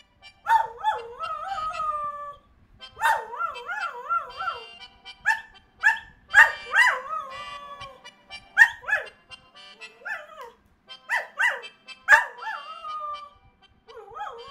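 Dog howling in a string of pitched, wavering howls, some long with a quick warble in the pitch, others short and sharp, with brief pauses between them.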